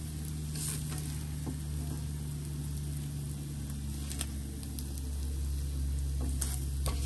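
Scrambled eggs sizzling in a hot frying pan, with a few short scrapes and clicks of a spatula, over a steady low hum.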